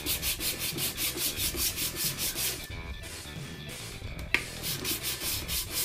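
150-grit sandpaper being rubbed back and forth over a pepakura helmet, about five quick strokes a second. The sanding pauses a little under three seconds in, a single sharp click sounds, and the strokes start again near the end.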